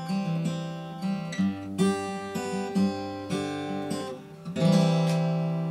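Taylor 810 acoustic dreadnought guitar being played: a steady pattern of picked notes and chords, then a loud full chord strummed near the end and left to ring.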